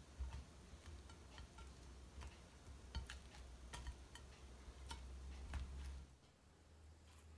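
Faint scattered clicks and soft taps as aubergine slices are picked up, turned over and set back down on a ceramic plate by hand, over a low steady hum.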